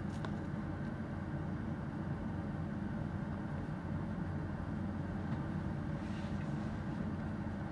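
Steady low hum and rumble inside a bus, unchanging throughout.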